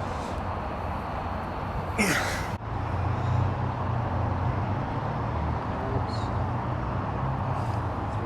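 Steady background din with a low hum under it, with a brief voice-like sound about two seconds in.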